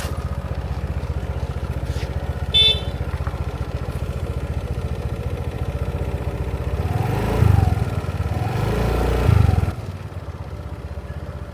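Motorbike engine running steadily while riding, with a short horn beep about two and a half seconds in. The engine and road noise grow louder for a few seconds past the middle, then drop back suddenly.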